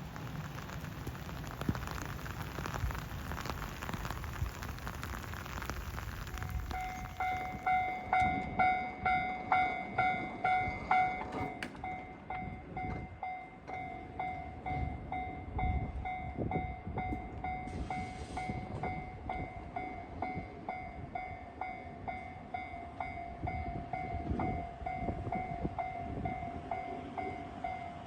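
Japanese railway level-crossing warning bell ringing its repeated electronic 'kan-kan' tone, about two strikes a second. It starts about seven seconds in, after a stretch of even hiss.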